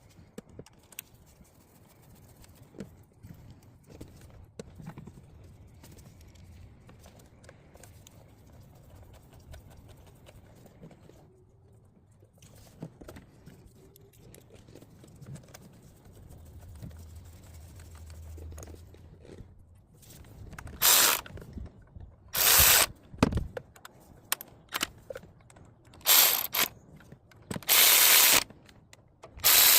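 Faint scattered clicks and handling of parts as bolts are threaded in by hand, then, from about two-thirds of the way through, a ratchet wrench clicking in several short, loud bursts as the Torx bolts holding the ignition coils are run down.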